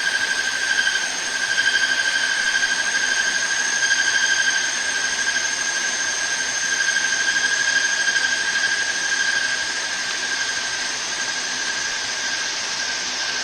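A steady, high-pitched mechanical squeal from shop work on a hydraulic cylinder, swelling and easing every second or so.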